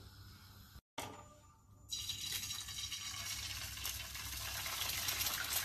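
Egg frying in hot oil in a pan, a steady sizzle that starts suddenly about two seconds in and slowly grows louder.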